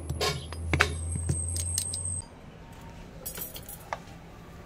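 Light metallic clinks and taps from a Hino truck drive shaft's universal joint (cross and yokes) being handled and turned, several in the first two seconds and a few more near the end. Under them a steady low hum runs and cuts off suddenly about two seconds in.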